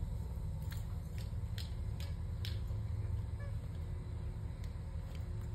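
Squeaky soccer-ball dog toy squeaking several times in quick succession as the dog bites it, the squeaks bunched in the first half, over a steady low rumble.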